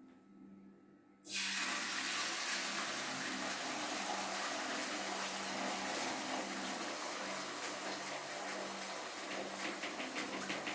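Beaten egg sizzling in a hot frying pan: a steady frying hiss that starts suddenly about a second in as the egg is poured in.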